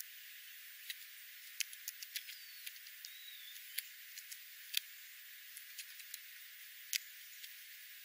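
Steller's jay and California scrub-jay pecking birdseed off gravel: scattered sharp clicks and taps of beaks on seed and grit over a steady faint hiss. Two faint thin chirps of a small bird sound about two and three seconds in.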